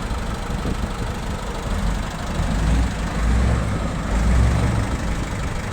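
Heavy diesel engine of construction equipment running steadily, getting louder twice for a second or so.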